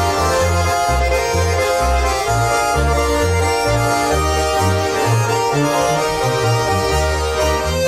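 Swiss Ländler folk music played on two Schwyzerörgeli (small Swiss diatonic button accordions) and a larger button accordion, with a double bass. The accordions hold sustained chords and melody over a bass line of separate notes about twice a second.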